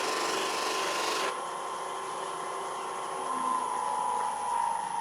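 Wood lathe spinning a buffing mop with a steady motor whine, while a bar of carnauba wax is pressed against the mop for the first second or so, adding a rubbing hiss. The whine dips slightly in pitch near the end.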